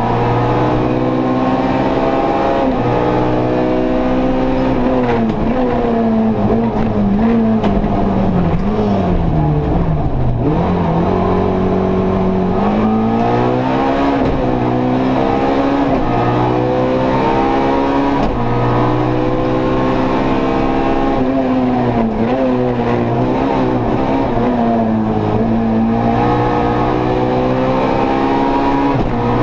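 Opel Kadett E rally car's 1.6-litre 16-valve engine, heard from inside the cabin, revving hard through the gears with its pitch rising and falling over and over. About eight to eleven seconds in it drops low as the car slows, then climbs again.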